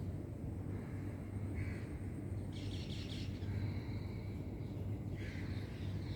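Small birds chirping: a short call about one and a half seconds in, a quick run of chirps about two and a half seconds in, and another call near the five-second mark. A steady low hum runs underneath.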